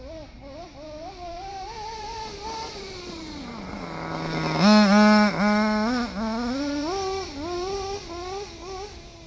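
Schumacher Havoc radio-controlled truck driving past, its motor whining up and down in pitch with the throttle. It is loudest from about five to seven seconds in as it passes close, then fades.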